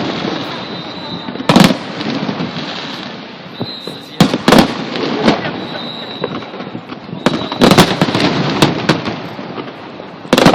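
Aerial fireworks display: loud shell bursts going off at irregular intervals, several in quick succession around the middle and again near the end, with continuous crackling between them.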